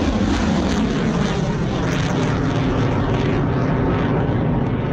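Rocket motors of surface-to-air missiles at launch: a loud, steady rushing rumble that begins to fade near the end.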